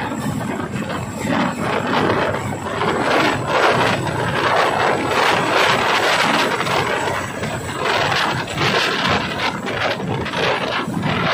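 Tandem-rotor Chinook helicopter flying low and close, then climbing away overhead. Its rotors and engines make a loud, steady noise.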